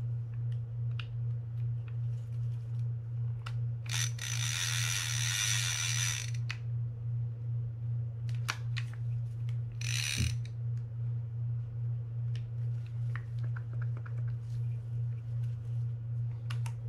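Penn International 20 lever-drag reel being tested by hand with the drag engaged: a rattling, ratchet-like whirr for about two seconds around four seconds in and a short burst near ten seconds, with small clicks from the lever and handle in between. A steady low hum runs underneath.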